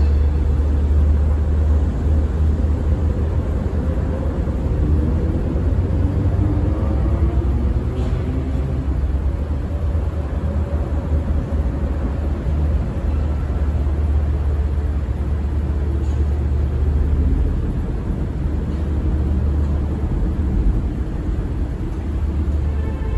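Steady low rumble of engines idling at the crossing, with faint wavering tones rising and falling in the middle.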